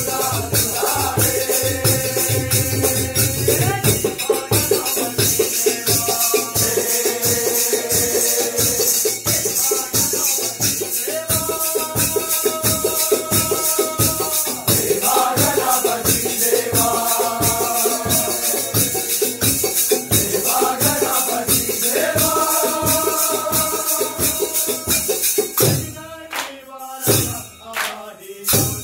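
Live Jakhadi folk music: men singing a Ganapati devotional song in repeated phrases over a fast, even beat of drum and jingling percussion. About three seconds before the end the steady beat gives way to a few separate loud strokes.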